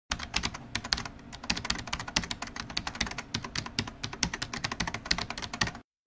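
Keyboard typing: rapid, irregular key clicks, several a second, that stop abruptly just before the end.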